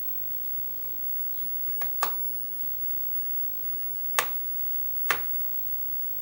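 Four sharp, short clicks of small screws and a screwdriver against the laptop's frame while the new screen's four small screws are set in place, two of them close together about two seconds in and the others near four and five seconds.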